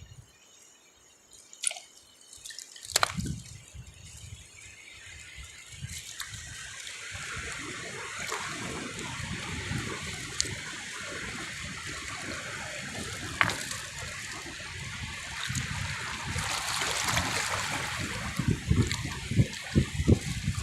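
Shallow seawater trickling and splashing, building up about six seconds in, with a few sharp clicks and knocks near the start.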